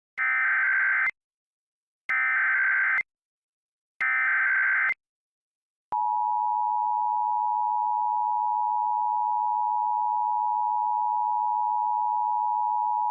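Emergency Alert System tones: three one-second bursts of buzzing SAME header data, about two seconds apart. About six seconds in, the steady two-tone EAS attention signal begins and holds.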